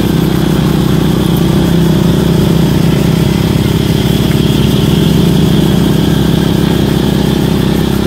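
Motorcycle engine running steadily while riding, a constant low drone.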